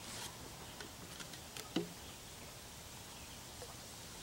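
Small clicks from handling a plastic canteen as it is opened and tipped to pour, with one sharper hollow knock nearly two seconds in, over a faint outdoor background hiss.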